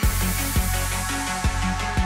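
Electronic dance music: a beat drops at the start, with a deep steady bass, kick drum hits and a crash that fades over a second or so.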